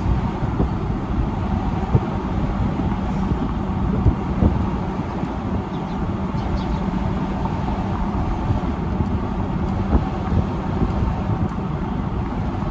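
A car driving along, heard from inside: steady engine and road rumble with a low hum, and a few light knocks.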